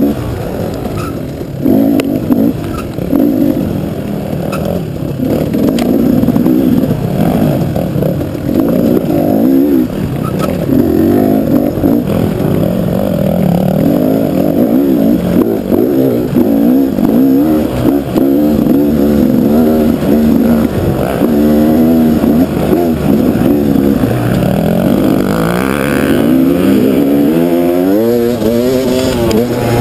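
KTM dual-sport motorcycle engine being ridden off-road, its pitch rising and falling repeatedly with throttle and gear changes, with a long climbing rev near the end.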